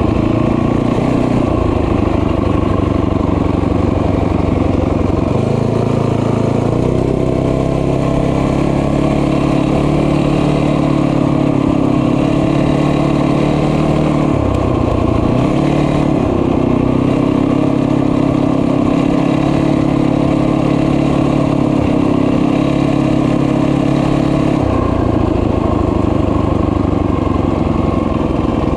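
Small motorbike engine running while riding, its pitch stepping up and down with the throttle, with a brief drop about halfway through and another near the end.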